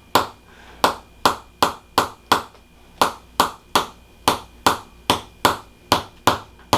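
A handheld chiropractic adjusting instrument tapping rapidly on the upper back, sharp even clicks about two to three a second, used to loosen a spine the chiropractor finds stiff as cement.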